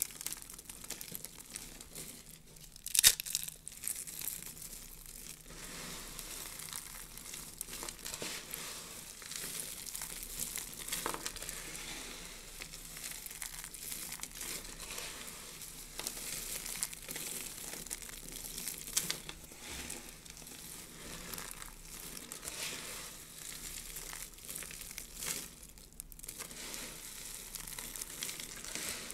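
Dry soap shavings crunching and crinkling as hands squeeze, scoop and rub through a heap of them, with one sharper, much louder crunch about three seconds in.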